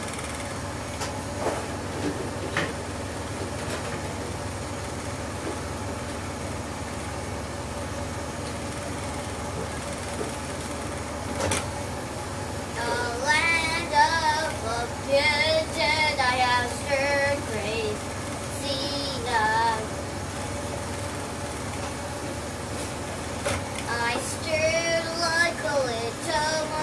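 Steady low hum of kitchen machinery throughout, with a child singing wordlessly in wavering phrases from about halfway in and again near the end.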